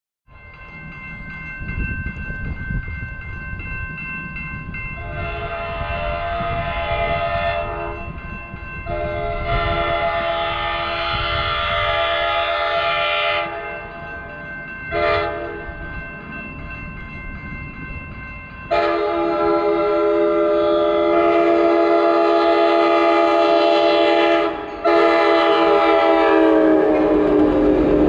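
Amtrak Pacific Surfliner cab car's multi-chime horn sounding the grade-crossing signal, two long blasts, a short one, then a long one held to the end, its pitch dropping as the train comes past. Crossing bells ring under the first blasts, and the rumble of the approaching train grows louder.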